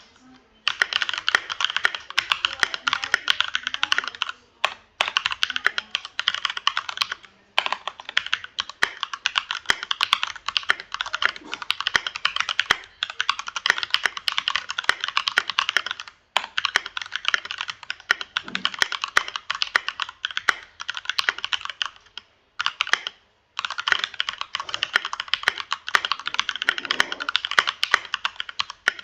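Keychron K2 V2 mechanical keyboard being typed on fast and continuously, a dense rattle of key clicks in long runs broken by a few brief pauses.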